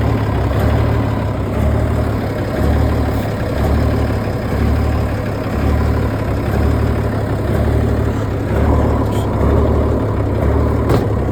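The M35A2 deuce and a half's straight-piped, muffler-less multifuel diesel engine idling steadily, with a low pulsing that swells about once a second.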